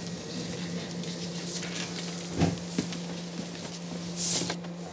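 Sheets of paper rustling as they are handled and leafed through, louder a little after four seconds, over a steady low hum in the room.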